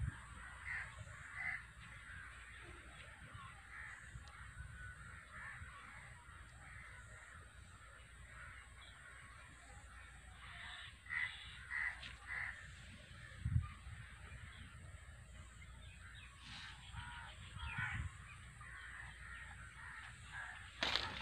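Birds calling now and then, faint short calls that come in little clusters about a second in and again around eleven to twelve seconds in, over a low rumble. There is one low thump midway.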